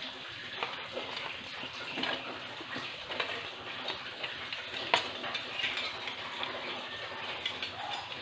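Tilapia frying in hot oil in a wok: a steady sizzle with scattered crackles and pops, one sharper pop about five seconds in.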